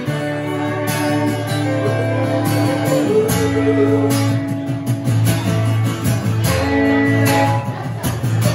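An acoustic guitar strummed together with an electric guitar in a live instrumental passage, with held notes and a wavering, bent note about three seconds in.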